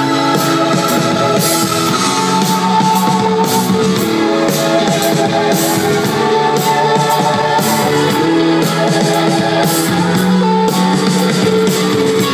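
A live psychedelic pop band playing amplified: electric guitar and bass, keyboard and drums, with held notes over a steady cymbal beat.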